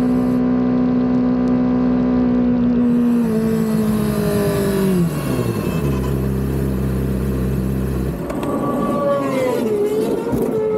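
Yamaha YZF-R6 inline-four engine, picked up close from the front of the bike. It holds a steady note, the revs fall about halfway through and settle at a lower steady note, and the pitch rises and falls again near the end.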